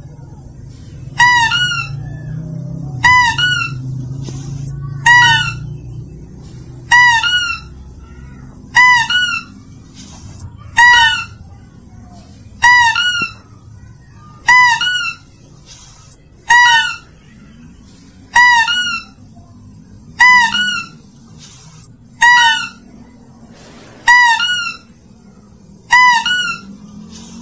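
Mouse-deer lure call: a short, high two-part squealing call repeated identically about every two seconds, fourteen times, like a looped recording played to draw in lesser mouse-deer.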